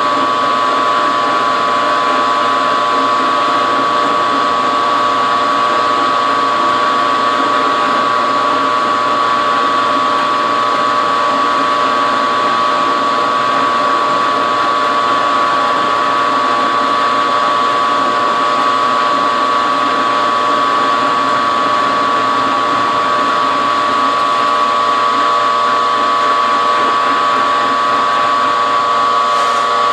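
Harbor Freight 6x26 mini milling machine running a 3/4-inch end mill through a steel bar, cutting a flat: a steady spindle whine with even cutting noise throughout.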